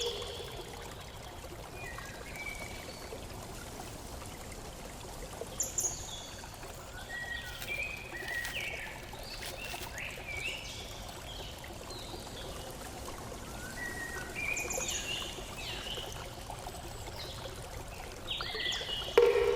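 Steady rush of flowing water with birds chirping in short scattered phrases over it. Near the end a sudden loud sound with a held low tone breaks in for about a second.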